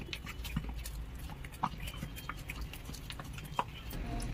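Hand-turned granite grinding stone (aattukal) working thick lentil-and-rice adai batter: a low steady rumble of the stone pestle turning in the mortar, with irregular sharp clicks.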